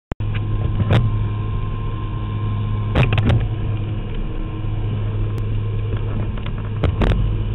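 Cabin noise of a skydiving jump plane in flight: the engines' steady drone with a strong low hum, heard from inside the cabin, with brief louder bursts of noise about one, three and seven seconds in.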